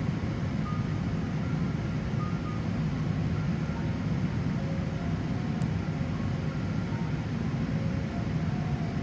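Steady low rumble of a plane's cabin noise: engines and rushing air heard from inside the aircraft, holding an even level throughout.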